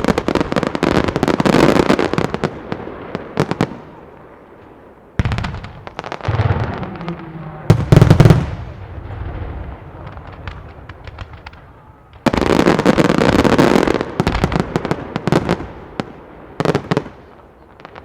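Professional fireworks display: shells bursting in rapid volleys with crackling between them. The deepest and loudest booms come about eight seconds in, and another dense volley follows from about twelve to fourteen seconds.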